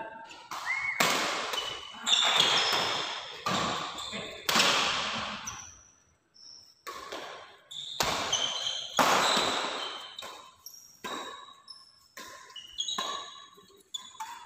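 Doubles badminton rally in an echoing sports hall: rackets smacking the shuttlecock and shoes squeaking and stamping on the court floor. A short lull comes about six seconds in.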